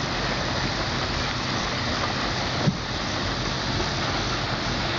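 Steady rushing noise of the river, with a low hum beneath and one short knock a little before the three-second mark.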